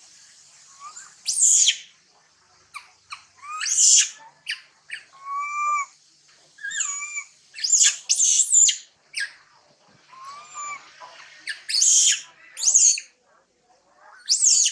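A string of short, high-pitched animal chirps and squeals, several sliding down in pitch, coming every second or so over a faint steady high hiss.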